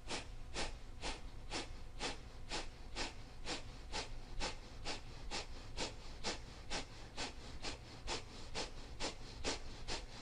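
Kapalabhati breathing: a steady series of short, forceful exhales pushed out through the nose by sharp pulls of the belly, about two a second.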